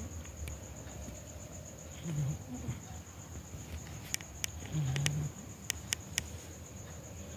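Sleeping domestic cat snoring: a short, low snore twice, about two and a half seconds apart. A few sharp clicks fall between the snores.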